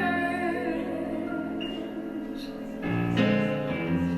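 Song with band accompaniment: a sung note trails off near the start, and the instruments play on, with a louder new chord entering about three seconds in.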